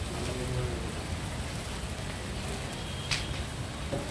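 Wood cremation pyre burning in the open, a steady crackling and hissing of the logs with one sharp pop about three seconds in.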